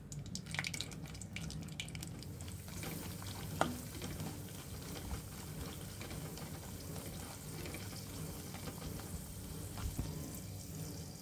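Cashew nuts frying in ghee: a steady sizzle, with a few light knocks of a slotted spoon stirring them, mostly in the first second and once more a few seconds in.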